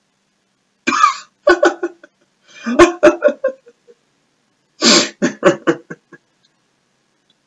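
A person coughing in three short fits, each a quick run of several coughs.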